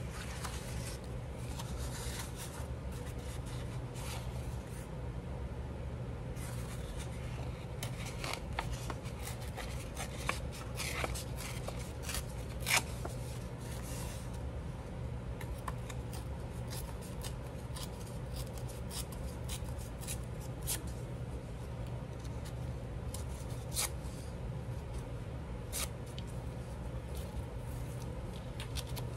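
Scrap paper being handled and sorted: scattered rustles and light clicks, a few sharper ticks among them, over a low steady hum.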